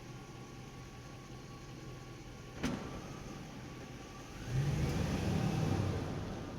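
Truck driving in a parking garage: its engine runs low and steady, with a sharp knock about two and a half seconds in. About four and a half seconds in the engine swells louder with a rising whine, easing off near the end.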